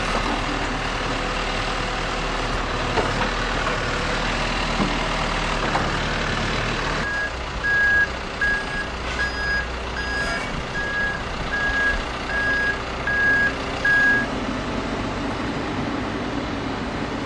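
Steady noise of engines and heavy vehicles. About halfway through, a vehicle's reversing alarm starts and beeps evenly at one pitch, about ten times over seven seconds, before stopping.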